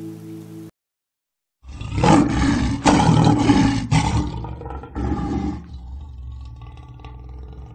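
A held music note stops just under a second in. After a short silence, a loud, rough animal-like roar sound effect starts, runs for about four seconds and then trails off.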